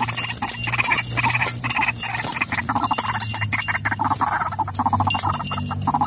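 A waterhen caught in a wire cage trap flapping and scraping against the mesh, under a fast, continuous croaking chatter.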